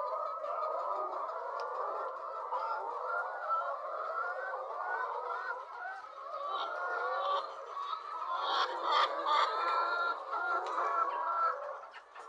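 A flock of laying hens clucking together in a dense, continuous chorus, getting louder with a few sharper calls about two-thirds of the way through.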